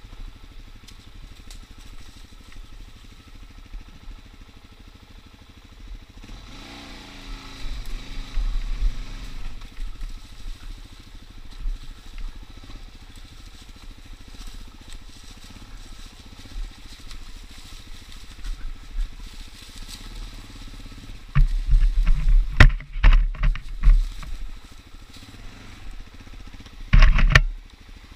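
Suzuki DR-Z dirt bike's single-cylinder engine running steadily at low speed on a trail. The revs rise and fall once about a third of the way in. A cluster of loud bumps and rushes comes about three-quarters of the way through, and one more near the end.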